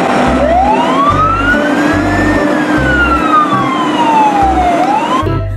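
A single wailing siren rises in pitch for about two seconds, falls slowly for about two and a half, and starts to rise again near the end, over background music with a pulsing bass.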